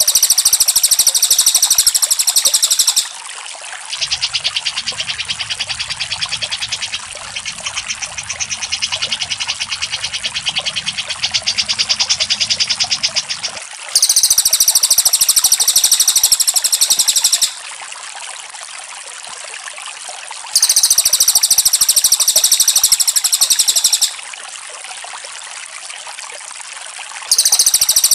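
Songbird calls from a masteran bird-song tutor recording: a shrill, rapid trill repeated about four times, each lasting some three and a half seconds with pauses between. A softer rapid chattering fills the first half, all over a steady trickle of water.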